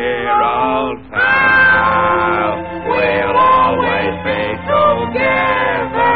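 Male cartoon voices, for the cat and dog, singing a song over orchestral accompaniment.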